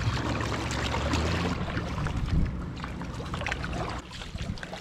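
Water splashing and trickling beside a kayak as a hand trails through it, over a low rumble. About four seconds in it turns quieter, to the drips and small splashes of a kayak paddle.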